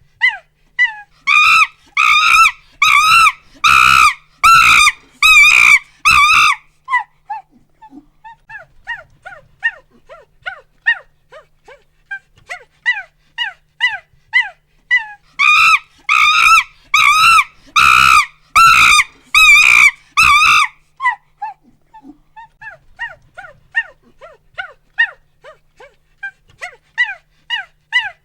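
A monkey hooting and screaming: a run of short rising hoots quickens into a string of loud, drawn-out screams, then tapers back into hoots. The whole sequence happens twice, and a new run of hoots starts near the end.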